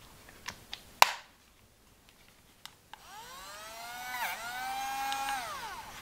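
A few sharp plastic clicks as the housing of a Ferm cordless rotary multitool is pressed shut. About halfway in, its small DC motor spins up with a rising whine, dips briefly in pitch, holds a steady high whine and winds down near the end: a test run showing the motor turns again.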